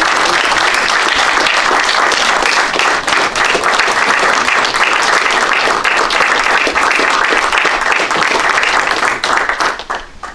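A small group of people applauding, steady clapping that dies away near the end.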